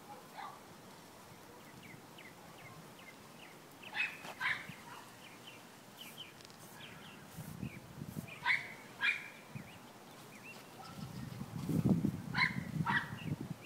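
A dog barking in quick pairs, three times about four seconds apart, with faint high chirps in between. A low rumble swells near the end.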